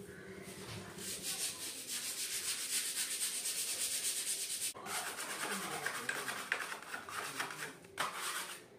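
A painter's quick hand strokes rubbing against a plastered wall, a steady scratchy rhythm of several strokes a second, with a brief break about halfway through.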